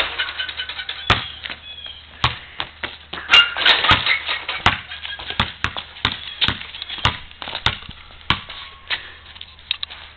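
A basketball being dribbled and bouncing on a hard outdoor court, a dull thud roughly every half second to second, with a sharper hit at the very start. High chirps come over it early on and again a few seconds in.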